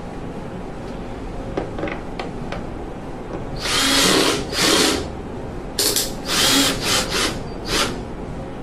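Cordless drill driving two screws through the furnace's sheet-metal jacket to fix the bulkhead coupling, running in short bursts from about three and a half seconds in, with a few light handling clicks before.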